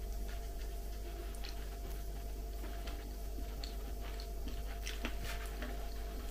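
Chopsticks picking at sushi rolls in a plastic delivery tray, making a scatter of faint clicks that come more often in the last couple of seconds, with chewing. Under it runs a steady low hum.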